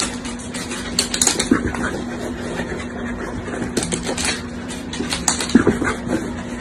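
Corgi's claws scratching and clicking on a rug and wooden floor in short scrabbling bursts, over a steady low hum.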